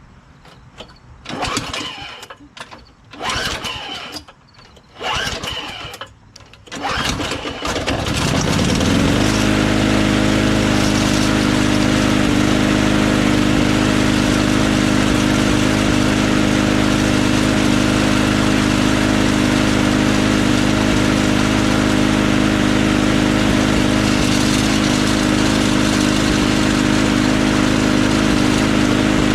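Briggs & Stratton Quantum engine on a rotary lawn mower being pull-started: four short pulls of the recoil starter, then it catches about seven seconds in. It revs up and settles into steady running.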